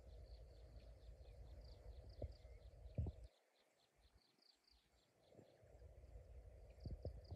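Faint, rapid high-pitched chirping from a small animal, about four chirps a second. Under it is a low rumble that drops away for a couple of seconds midway, with a few soft knocks.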